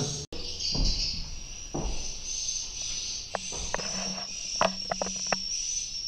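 Swiftlet calls filling a nest house: a steady, high, insect-like chirping trill. Sharp clicks and low handling knocks come near nests on the wooden walls, loudest from about three to five seconds in.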